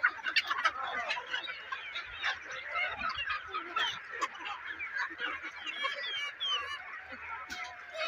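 A large flock of chickens clucking and calling over one another, a dense chatter of many short overlapping calls. A few sharp clicks come in the first second.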